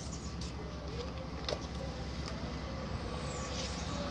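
Steady low rumble of a motor vehicle's engine running, with a few faint clicks over it.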